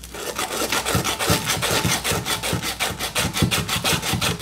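Emery cloth strip wrapped around a copper pipe, sawed back and forth in quick, even strokes, several a second: the pipe surface around a hole being sanded clean so a brazing rod will adhere.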